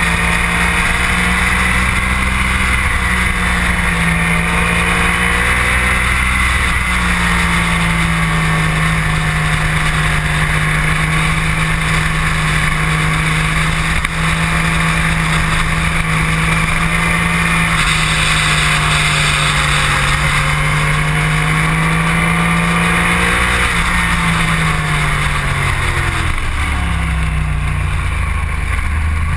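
Sport motorcycle engine held at high revs through a long fast corner, with heavy wind rushing over the microphone. Over the last few seconds the engine note falls in several steps.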